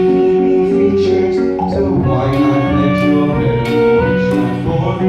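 Musical-theatre band accompaniment playing an instrumental stretch of a song, with held chords and a few sharp percussive hits in the middle.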